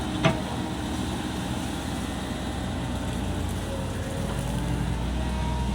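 Komatsu PC135 excavator's diesel engine running steadily under work, with one sharp knock just after the start; the low engine note grows louder about four seconds in.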